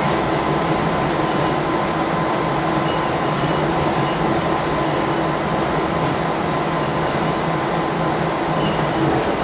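Airport people-mover train running along its guideway, heard from inside the car: a steady running noise with a constant whine.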